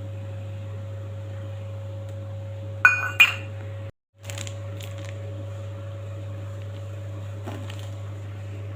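Two sharp, ringing clinks of a kitchen utensil striking a dish about three seconds in, then a few faint knocks, over a steady low hum.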